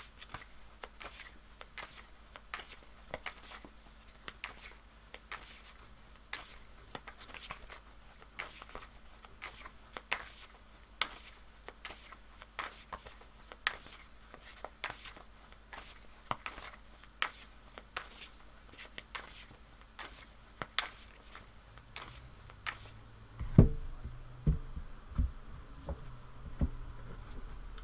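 Tarot cards being shuffled by hand: a dense, steady patter of small card clicks and slaps. About 23 seconds in the shuffling stops, and cards are set down on the cloth-covered table with a sharp knock, the loudest sound, then a few softer thuds.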